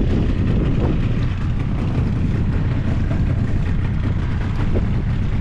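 Suzuki outboard motor running steadily at low trolling speed, pushing an inflatable boat through choppy water.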